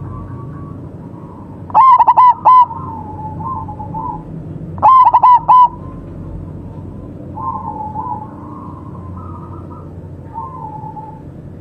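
Zebra doves (perkutut) cooing: two very loud bursts of four rapid coo notes about three seconds apart, with softer cooing from other doves in between.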